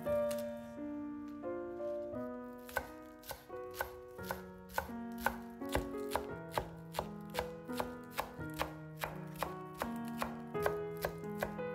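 Chef's knife chopping spring onions on a wooden cutting board: sharp, even strokes about two or three a second, settling into a steady rhythm a few seconds in. Soft piano music plays underneath.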